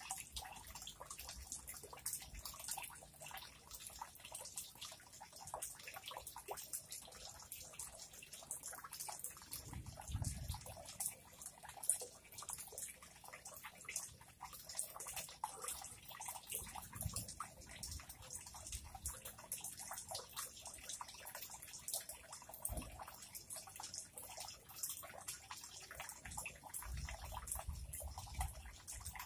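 Water dripping into a pond in scattered drops, with faint rustling and crackling of dry grass stems being twisted and knotted by hand.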